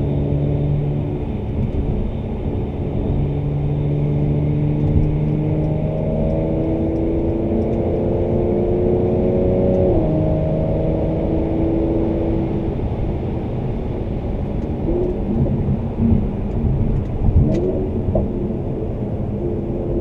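2017 Mercedes-AMG C43's twin-turbo V6 with performance exhaust, heard from inside the cabin. The engine's pitch climbs under acceleration and falls sharply at an upshift about halfway through, then it runs on steadily. Near the end come short revs with a few sharp exhaust cracks.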